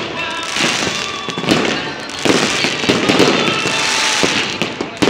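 Fireworks display going off: a dense, continuous crackle of many small reports from glittering comet trails and shells, with heavier bangs from about two seconds in and one sharp bang near the end.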